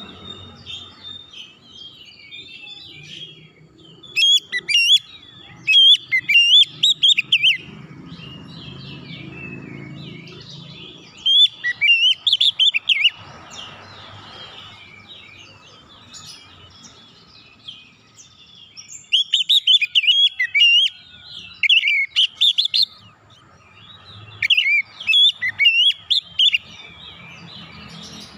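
Oriental magpie-robin singing loud, rapid runs of high chirping whistles. The runs come in repeated bursts a second to a few seconds long, with pauses between.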